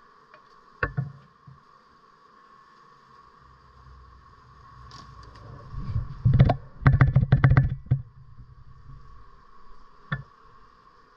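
Knocking and scraping from a hive being worked with a metal hive tool: one sharp knock about a second in, then a burst of rapid clattering knocks over a low rumble around six to eight seconds in, and a single click near the end.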